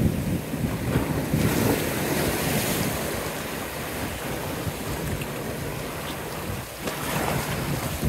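Small sea waves breaking over low rocks and foam washing up the sand, swelling about two seconds in and again near the end, with wind rumbling on the microphone.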